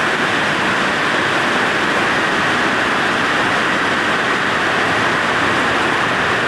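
Heavy downpour: rain making a loud, steady hiss that does not let up.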